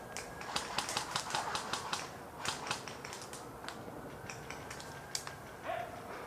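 Airsoft gunfire: quick runs of sharp clicks and snaps, densest in the first two and a half seconds, then sparser single cracks.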